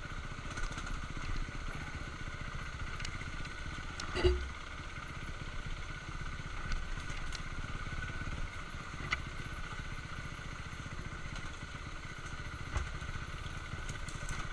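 BMW F650GS motorcycle engine running steadily while the bike rides slowly over a rough, rocky trail. A few sharp knocks and clatters come from the bike hitting rocks, the loudest about four seconds in.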